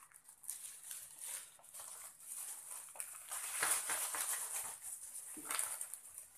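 Thin plastic carrier bags rustling and crinkling in uneven surges as they are handled, opened and filled with snack packets.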